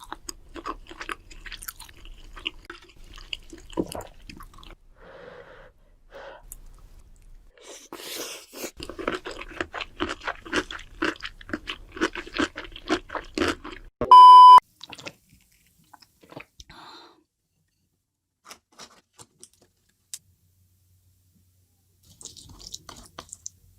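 Close-up chewing and crunching of a big mouthful of food for about fourteen seconds. This is followed by a loud steady beep lasting about half a second, then only a few faint clicks.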